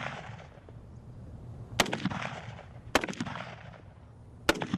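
Rifle shots from an M1 Garand (.30-06) and an M4 carbine (5.56 mm): three sharp reports, roughly a second to a second and a half apart, each trailing off in a rolling echo.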